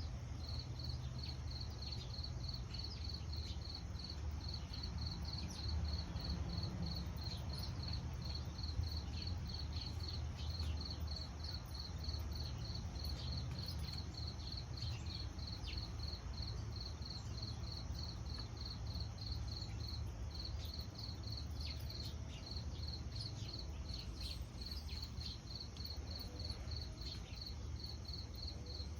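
Cricket chirping in a steady, even rhythm, about three high-pitched chirps a second, over a low steady rumble.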